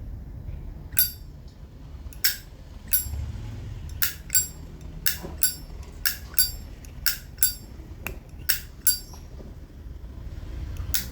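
A 1967 Zippo lighter's hinged lid clicking open and snapping shut over and over: about fifteen sharp, ringing metallic clicks, many in quick pairs.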